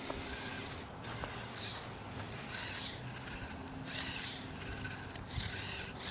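Motorized LEGO Technic 8110 Unimog with two XL motors driving through snow: a faint steady motor and gear hum under short crunches of snow that come about every second and a half.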